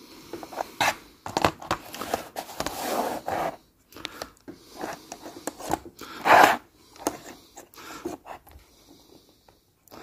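Handling noises from a model railway point and its Peco PL-10 point motor being picked up and moved about on a tabletop: scattered clicks, taps and rustles, the loudest about six seconds in.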